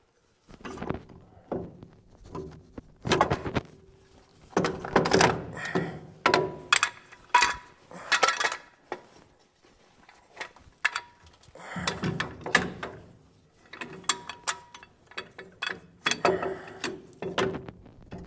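Metal clanking and clicking as heavy air brake shoes and their coil return springs are handled and fitted onto a Dexter 15k trailer axle's brake spider and S-cam. The knocks come irregularly, several at a time, and some leave a brief metallic ring.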